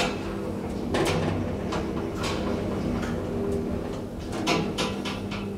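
Traction elevator running with its doors shut: a steady low hum with irregular clicks and rattles, several close together near the end.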